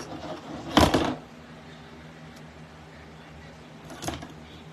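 Work-table handling noise: a short, loud clatter or rustle about a second in, and a lighter knock near the end as hand pliers are set down on the table, over a faint steady hum.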